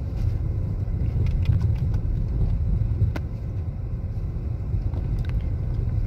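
Low, steady rumble of a car's engine and tyres heard from inside the cabin while it drives slowly along a snow-covered road, with a few faint scattered clicks.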